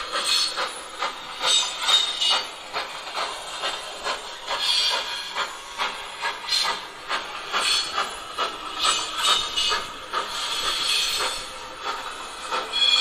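Steam-locomotive sound from the ESU LokSound 5 decoder in a Gauge 1 model of a Prussian T3 tank engine: rhythmic chuffing with hissing, played through the model's speaker.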